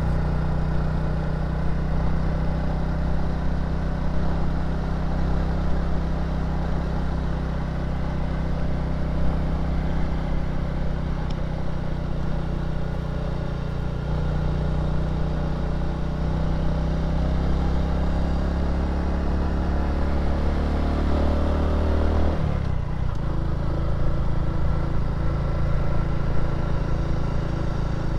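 Motor scooter engine running steadily under load, climbing a long steep hill. A little over twenty seconds in, its note rises slightly and then drops abruptly to a different, lower-pitched running sound.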